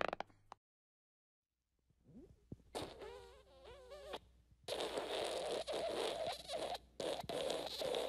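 Fart sound effects. A short one ends just after the start; about three seconds in comes a pitched fart whose pitch wavers for about a second and a half; from about halfway a long raspy fart runs on, broken by short gaps.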